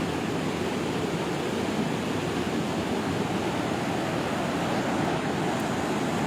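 Steady rushing of the Kabul River in flood, its high, muddy water flowing fast past the bank.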